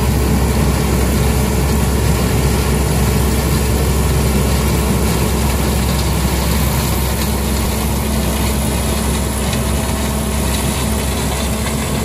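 1975 John Deere combine running steadily while harvesting corn: a loud, even drone with a strong low engine hum.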